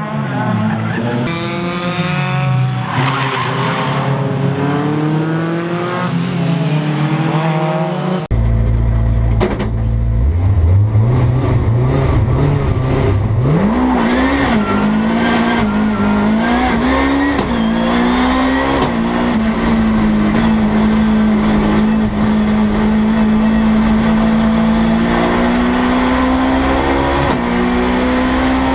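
Rally cars' engines at full effort, revving up and shifting through the gears in a run of rising notes. An abrupt change about eight seconds in brings another engine: a deep low rumble, then a long climb in revs, a few rises and falls as it shifts, and from about the middle on a steady high note held to the end.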